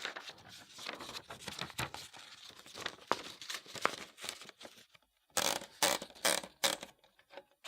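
Manual typewriter mechanism clicking and ticking irregularly, then four short rasping ratchet bursts a little past the middle.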